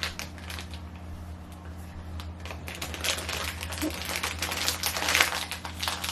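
A small mystery blind-bag package being crinkled and torn open by hand: a run of little crackles and clicks, sparse at first and denser from about halfway, over a steady low hum.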